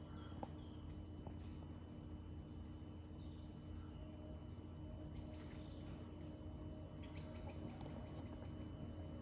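Faint nature soundscape of small birds chirping: short high calls and glides, growing into a busier run of rapid chirps about seven seconds in, over a steady low hum.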